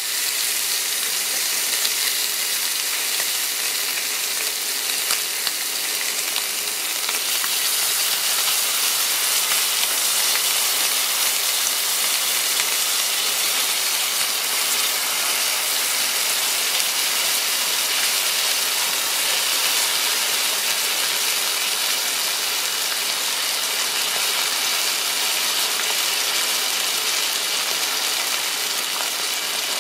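T-bone steak frying in a hot cast-iron skillet: a steady sizzling hiss.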